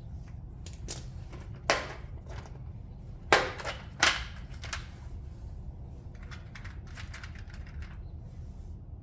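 Clicks and clacks of small parts and tools being handled while working through a wire connector kit, with three sharper knocks at about two, three and four seconds in and lighter ticks after, over a steady low hum.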